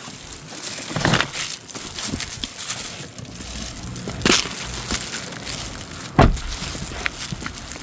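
Plastic bags, pet-food pouches and cans rustling and knocking as they are handled and carried out of a car, with a sharp knock about four seconds in and a heavier thump about six seconds in.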